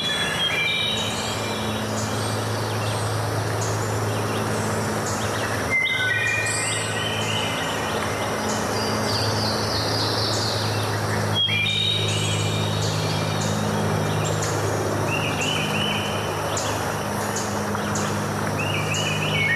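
Steady rush of flowing water under birds singing in short, repeated series of high chirps, with a steady low hum beneath.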